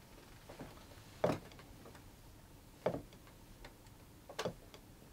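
An old wooden table knocking three times, about a second and a half apart, with a few fainter taps between. This is table-turning: the table is counting out a yes-or-no or number answer, here three knocks for three years.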